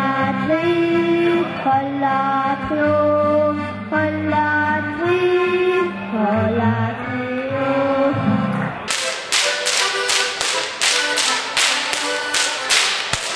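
Folk music on button accordion and acoustic guitar, which breaks off about nine seconds in. It gives way to rhythmic whip cracks, about three a second, each ringing briefly: Bavarian Goaßlschnalzen, whip-cracking in time.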